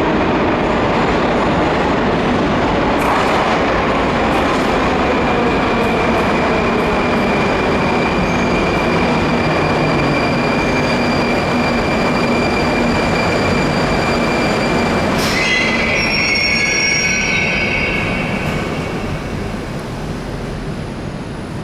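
Moscow Metro 81-740/741 articulated train pulling into a station: wheel rumble and a high whine, with tones falling in pitch as it slows. About fifteen seconds in a sharp, high squeal breaks out for two to three seconds as it comes to a stop, and the noise then dies down.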